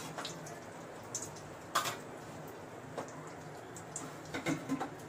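Cooking oil heating in an aluminium kadai on a gas burner, giving scattered small pops and crackles over a steady low hum, with a short cluster of pops near the end.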